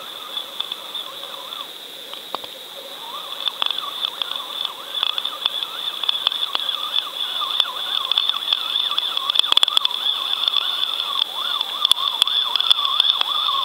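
Underwater sound picked up inside a line-mounted fishing camera's housing: a steady high whine with warbling, gliding tones beneath it and scattered sharp clicks. It grows louder about four seconds in.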